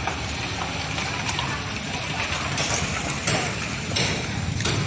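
Street traffic: a van and small cars driving slowly along a wet gravel road, a steady mix of engine and tyre noise.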